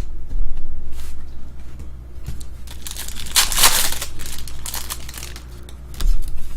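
Wrapper of a pack of baseball cards crinkling and tearing as it is opened, the loudest rustle about three and a half seconds in, with scattered small clicks of cards being handled.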